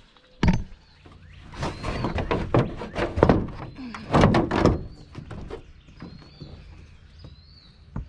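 Plastic cover shroud of a Dometic rooftop RV air conditioner being set back down over the unit: a sharp knock about half a second in, then a run of knocks and rattles over the next few seconds as it is settled into place.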